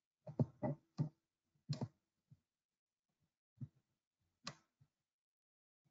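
Scattered short clicks and taps: a quick cluster in the first two seconds, then a few single ones spaced out.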